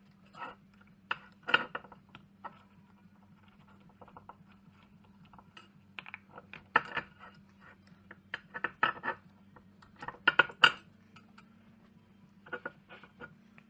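Steel hydraulic-cylinder piston sections and seal parts being picked up and set down on a metal workbench: an irregular string of metallic clinks and knocks over a steady low hum.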